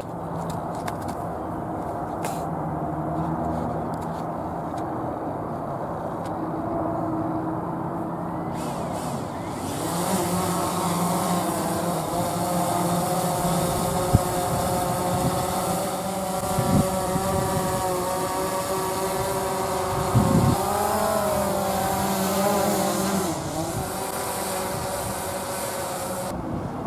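DJI Phantom 3 Advanced quadcopter's four propeller motors whining steadily, growing louder about a third of the way in as the drone lifts off the grass and climbs to a hover. The pitch wavers as it moves, and there are a few short low thumps.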